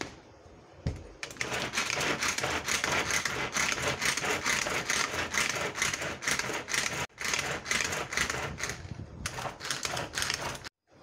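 Pull-cord manual vegetable chopper being yanked over and over, its spinning blades clattering as they chop onion pieces in the plastic bowl: a fast rattling run of clicks with a short break midway, stopping just before the end.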